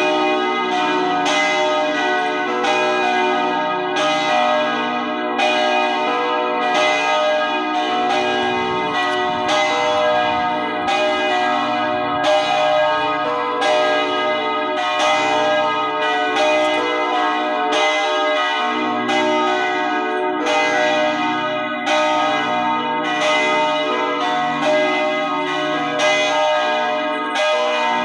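Church bells ringing continuously, a stroke about every two-thirds of a second, each one's tones ringing on into the next.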